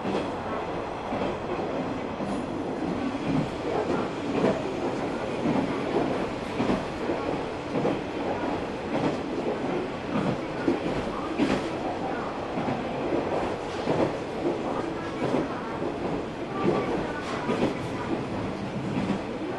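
Running sound inside a JR KiHa 120 diesel railcar on the move: a steady rumble of engine and wheels on rail, broken by frequent irregular clacks and knocks.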